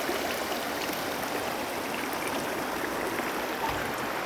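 Steady rush of fast-flowing flood water in a swollen river.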